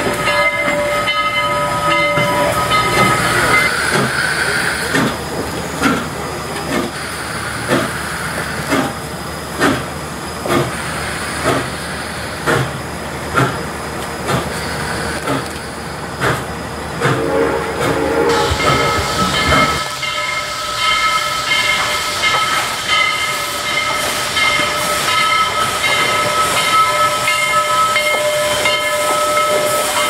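Steam locomotive whistle sounding a steady chord of several notes, then the engine working with slow, even exhaust chuffs, a little under one a second. From a little past the middle, a long, steady whistle blast sounds over a loud hiss of steam.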